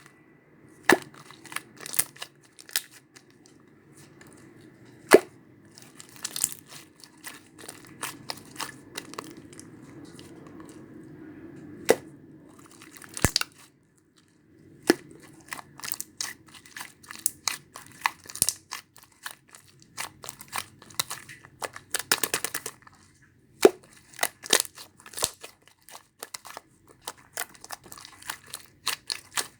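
Watermelon slime being squeezed, stretched and poked by hand: irregular crackles, clicks and small pops, stopping briefly near the middle.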